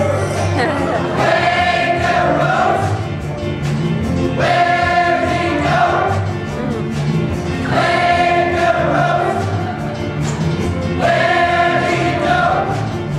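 Music with a group of voices singing together in long held phrases, about four phrases in a row.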